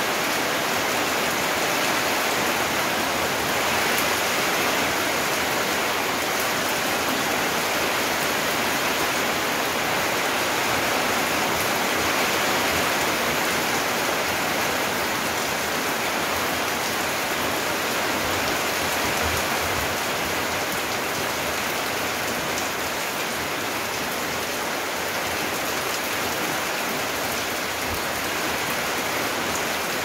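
Steady rain falling on paving, puddles and garden plants: a dense, even hiss that holds without let-up.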